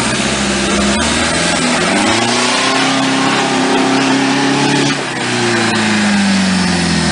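Off-road 4x4's engine revving hard under load as it works up a muddy slope. The revs climb and hold high for a couple of seconds, dip, rise again, then fall away, with a loud hiss of noise over the engine.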